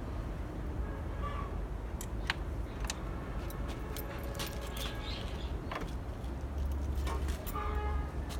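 Scattered light metallic clicks and clinks of tools and fittings being handled, over a steady low background rumble.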